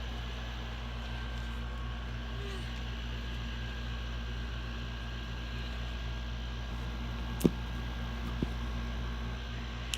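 Steady low mechanical hum with a faint hiss. A sharp click comes about seven and a half seconds in, and a softer one about a second later.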